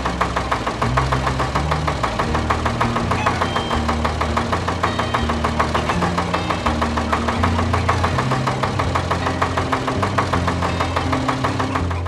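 Cartoon tractor engine sound effect chugging in a rapid, steady rhythm, over background music with a low bass line.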